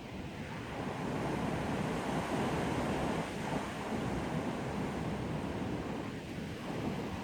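Strong wind blowing through trees, a steady rushing that swells in gusts, growing louder about a second in and easing briefly near six seconds.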